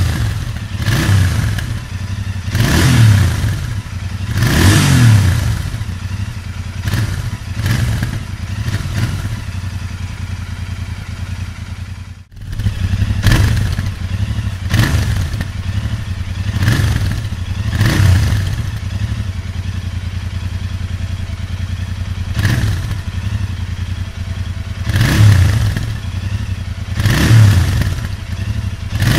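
Royal Enfield Interceptor 650's parallel-twin engine idling through its exhausts and blipped again and again, each quick rev climbing and falling back to a lumpy idle every couple of seconds. The sound drops out for a moment about twelve seconds in, then the idling and revving carry on.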